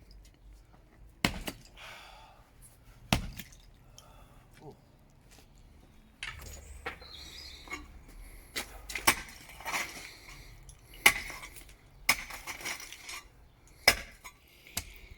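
A paved garden path being smashed up: sharp hard impacts a few seconds apart, with cracking, scraping and rattling of broken paving and rubble in between. From about six seconds in, a low steady hum runs underneath.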